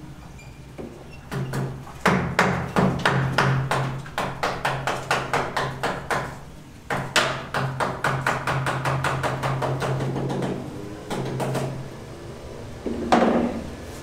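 Quick runs of hand hammer blows, about four to five a second, struck against a chisel on a concrete wall. They pause briefly about halfway through and end with a single harder blow.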